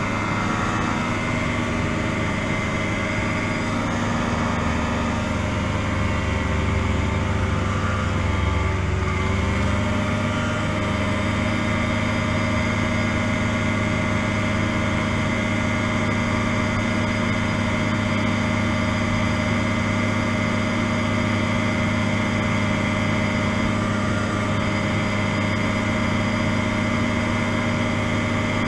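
Challenger 1 ultralight's engine and pusher propeller droning steadily in flight, heard from the open cockpit. The engine's pitch sags briefly about nine seconds in, then holds steady again.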